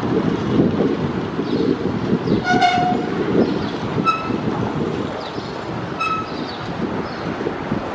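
Boeing 737-800's CFM56-7B jet engines rumbling as the airliner rolls along the runway after landing. About two and a half seconds in, a short horn-like tone sounds, and two brief higher tones follow near four and six seconds.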